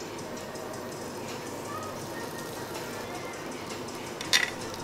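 Steady restaurant din with background music, and one sharp tap near the end.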